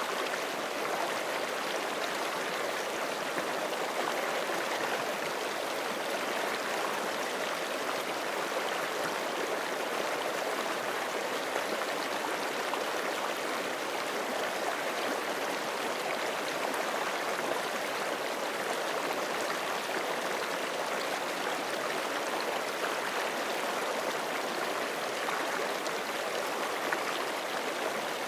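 Forest creek flowing over rocks, a steady rushing and burbling of water with no change in level.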